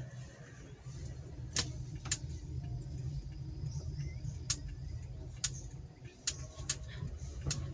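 Car running slowly, heard from inside the cabin as a steady low rumble, with about seven sharp clicks at irregular moments.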